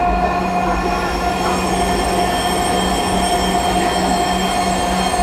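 Dhaka Metro Rail electric train running at speed, heard from inside the carriage: a steady low rumble of the wheels on the rail with a constant high whine over it.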